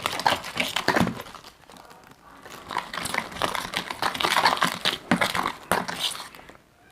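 Spoon stirring a glue-and-activator slime mixture in a bowl: scratchy, rustling noise with many small clicks, in two spells with a short lull about two seconds in. The glue is starting to set into slime.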